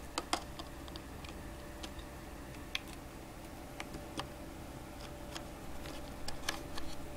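Small irregular clicks and taps of fingers and plastic as an SD card is worked into a USB card reader's slot, over a steady low hum.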